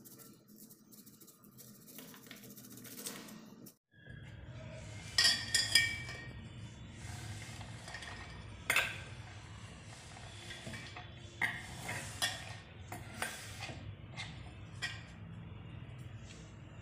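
A knife slicing corn kernels off the cob on a wooden cutting board, with light scraping clicks. After that, kernels are swept off the board into a steel mixer jar, with a series of sharp clinks and knocks against the metal over a steady low hum.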